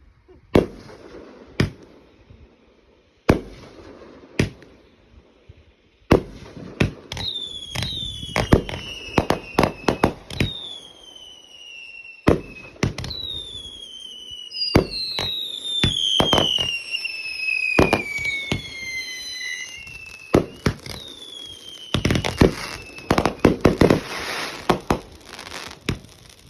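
Consumer fireworks going off with repeated sharp bangs. From about seven seconds in, several whistles overlap, each falling in pitch, and a dense stretch of crackling comes near the end.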